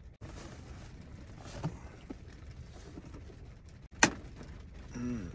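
Steady low rustle of strong wind against the tent, with a few faint ticks and one sharp click about four seconds in as a plastic egg box is opened.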